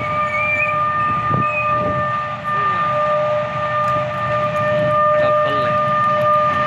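Pakistan Railways HBU-20 diesel locomotive's air horn, sounding one long steady blast as the train approaches, over a low rumble.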